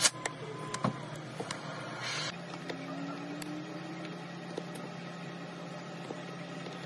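Steady low electric hum with scattered light clicks of a steel setting tool against a gold piece and its diamonds; the sharpest click comes right at the start.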